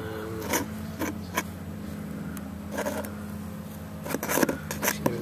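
Broken fragments of a hermetic compressor's aluminium connecting rod being handled and set down on cardboard: scattered light clicks and scrapes, more of them close together near the end, over a steady low hum.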